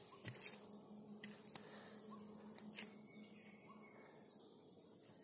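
Faint, high-pitched insect chirping in a fast, even pulsing, with a few light clicks.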